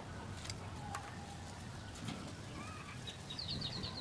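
Birds chirping faintly, with a quick run of high chirps near the end, over soft outdoor background; a couple of light clicks come as firewood sticks are set in the stove.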